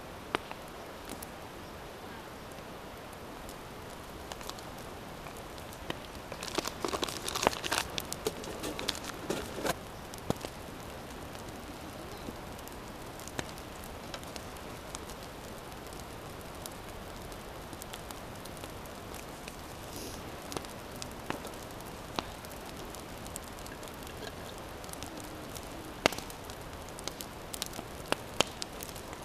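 Paper flour bag and a small paper packet being handled by hand, with a stretch of crinkling and rustling several seconds in, over a steady background hiss. Near the end come a few sharp clicks as a steel thermos is handled and water is poured onto the flour.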